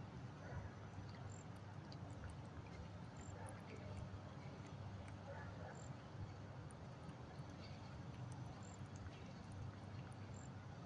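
Cat chewing and licking meat from a plate, faint wet smacks and clicks scattered through, over a low steady rumble.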